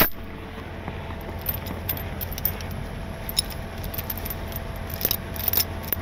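Tire chains being handled and laid in the snow under a truck's tyre as makeshift wheel chocks: scattered metallic clinks and jingles of the chain links.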